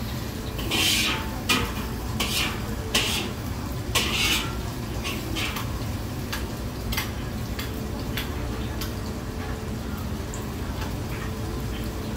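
Metal cooking utensils scraping and clattering against a wok and pans, busiest in the first four seconds and then reduced to scattered clinks, over a steady low rumble of kitchen equipment.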